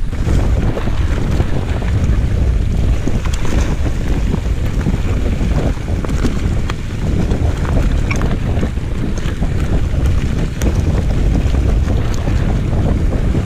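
Wind buffeting an action camera's microphone as a mountain bike rolls along a dirt trail, a steady low rumble with scattered small clicks and rattles from the bike and the ground.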